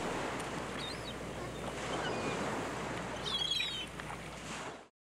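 Water ambience: a steady wash like lapping water or surf, with a few short bird chirps about a second in and again around three and a half seconds. It cuts off abruptly near the end.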